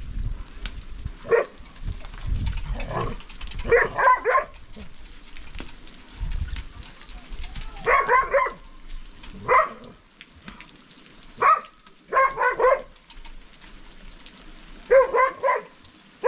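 An animal calling in quick runs of three or four short calls, repeated several times, over rain pattering.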